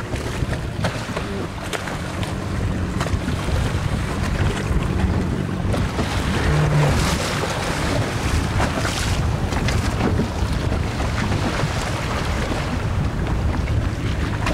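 Motorboat engine running steadily under way on choppy sea, its low hum mixed with wind buffeting the microphone and waves splashing.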